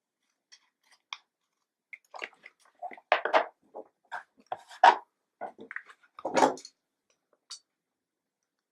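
Card stock being cut: a run of short, irregular crisp snips and crunches, loudest in the middle of the stretch, then a couple of faint clicks.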